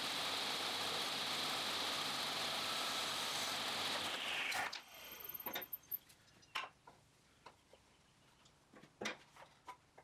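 Table saw running, then switched off and winding down with a falling whine about four and a half seconds in. After that come a few light clicks and knocks of small wood pieces being handled and set down on the saw table.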